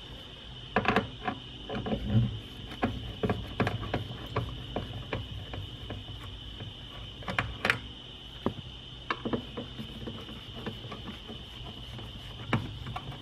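Hand screwdriver turning out the screws that hold a factory door speaker in its mount, giving irregular small clicks, ticks and scrapes, with a sharper click about eight seconds in.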